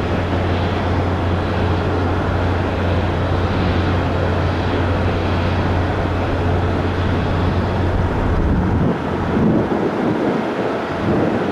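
Airbus A320neo jet engines at take-off power, a loud, steady rush of engine noise. About nine seconds in, a steady low hum drops away and wind gusts rumble on the microphone.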